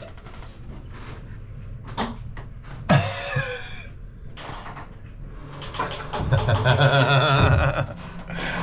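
Knocks and a scrape as a foam-core fibreglass floor panel is lifted and hung from a hand-held luggage scale, the loudest knock about three seconds in. A longer, louder wavering sound follows about six seconds in.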